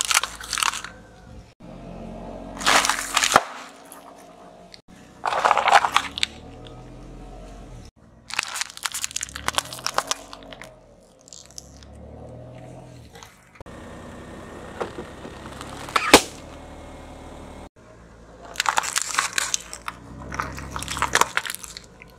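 Car tyre rolling over and crushing plastic drinking straws and wrapped sweets on asphalt: sharp cracking, crunching and crinkling in about six separate bursts with short quieter gaps between them.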